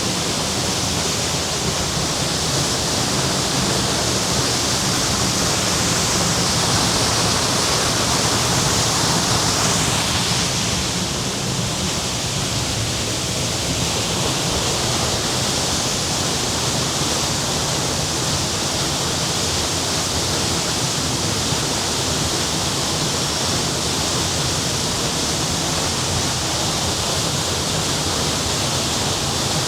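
Waterfall: water falling and splashing in a steady, loud rush.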